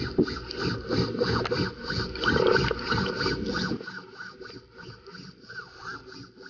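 Underwater noise picked up through a camera housing as a freediver swims up from the bottom: water rushing past, with rubbing and knocking. It is loud for about the first four seconds, then much fainter.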